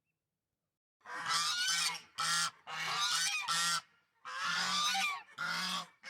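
Geese honking: a run of about six loud, harsh calls in quick succession, starting about a second in after a dead-silent start.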